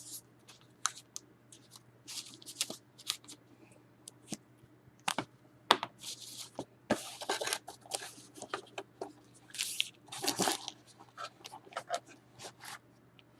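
Sealed foil trading-card packs being handled and shuffled on a table: crinkling wrappers and light taps in irregular short bursts.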